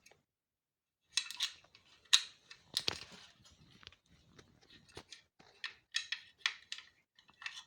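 Irregular clicks, scrapes and small metallic clinks of a screwdriver, screws and plastic parts being handled on an electric scooter's rear fender assembly. The sounds begin about a second in and run on in short clusters.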